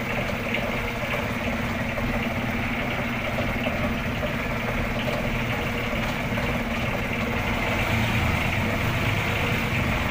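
Outrigger fishing boat's engine running steadily at low speed, a constant even hum.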